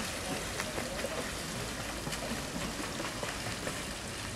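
Swimming-pool water splashing and washing as children move in it, a steady watery hiss with scattered small splashes.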